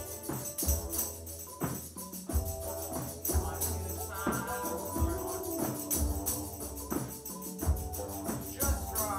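A group of voices singing together over a hand-held frame drum beaten about once a second, with a quick high rattling shimmer running along with it.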